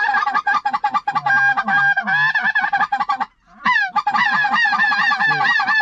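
Loud, dense goose honking, many calls overlapping at once. It breaks off briefly a little past halfway, then resumes with a rising call.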